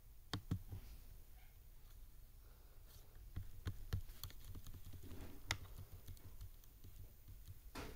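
Faint, scattered clicks and taps of a computer mouse and keyboard, irregularly spaced.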